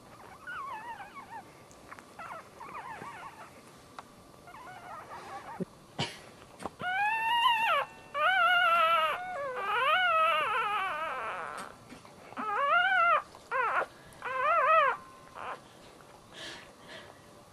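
Newborn dachshund puppy crying: a string of high, wavering squeals, faint at first, then about five louder cries in the second half, each around a second long.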